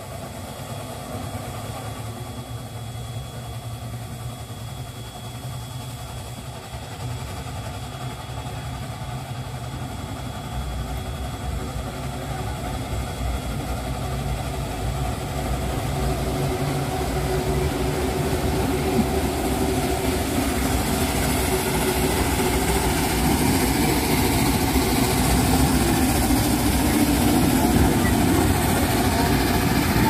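Small LMS steam tank locomotive working a goods train, its exhaust and running growing steadily louder as it pulls away and comes closer.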